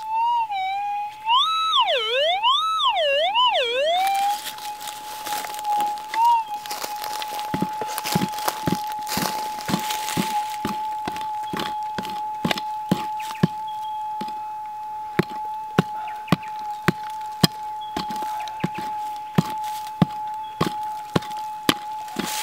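Metal detector giving a target signal, its tone swooping up and down in pitch for the first few seconds, then settling into a steady single-pitch hum. From about seven seconds in, a small pick strikes the soil about twice a second as the target is dug out.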